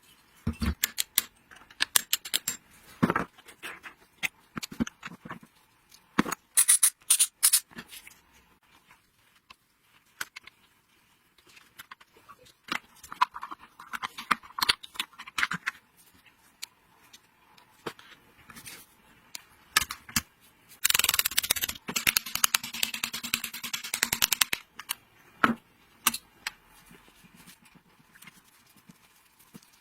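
Metal parts and hand tools being handled: scattered clicks, taps and clinks, with a few seconds of dense scraping about two-thirds of the way through.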